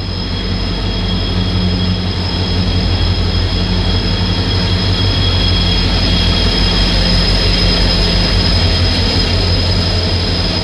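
Konkan Railway train running: a loud, steady rumble with two steady high-pitched whines held above it.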